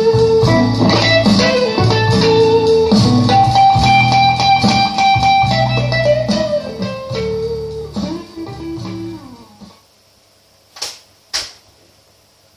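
Electric guitar music with a bass line, dying away about ten seconds in; two short clicks follow about a second later.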